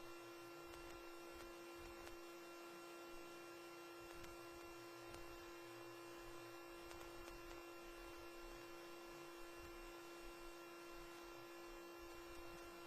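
Near silence: dead air on the TV feed, with only a faint steady electrical hum.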